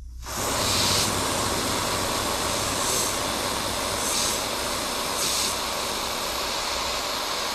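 Can of compressed gas duster spraying in one long steady hiss, with about four brief surges, as it freeze-chills a LiFePO4 battery's BMS temperature sensor.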